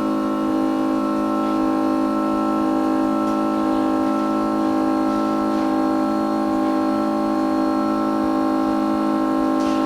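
Background music: a steady chord of long held tones, like an organ or synthesizer pad, unchanging throughout.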